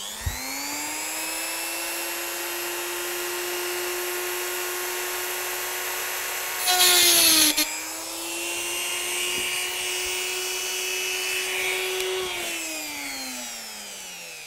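Old Maplin rotary tool with a diamond cutting disc spinning up to a steady whine, then briefly grinding through a metal point motor wire about seven seconds in, a loud harsh hiss with the motor's pitch dipping under the load. Near the end the tool is switched off and winds down, its whine falling.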